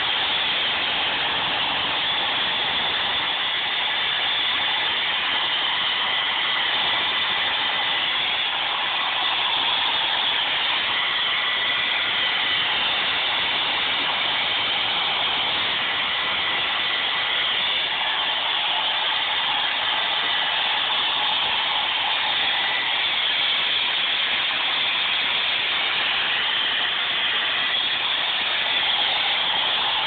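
Handheld blow dryer running steadily: a constant rushing hiss of air with a faint high whine.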